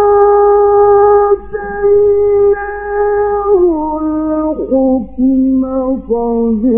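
A male Quran reciter's voice chanting in the drawn-out mujawwad style. It holds one long high note, then about three and a half seconds in glides down into lower, ornamented turns. The recording is old, with a steady low hum beneath the voice.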